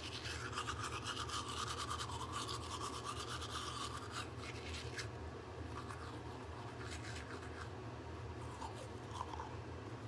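Manual toothbrush scrubbing back and forth on teeth: brisk, rapid strokes for the first few seconds, then slower, lighter brushing.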